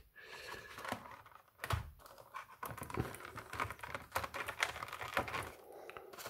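Clear plastic blister packaging crinkling and clicking as it is handled, with many small irregular clicks.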